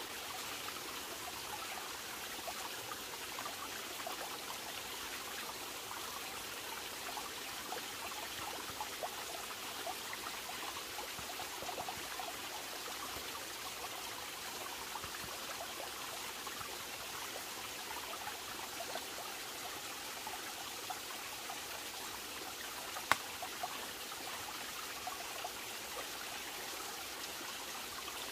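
Steady burbling rush of a small forest stream flowing over rocks, with one sharp click about 23 seconds in.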